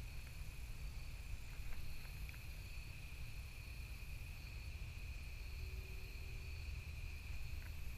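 Evening insect chorus: crickets trilling steadily as a constant high tone, over a low rumble on the microphone, with a few faint clicks about two seconds in.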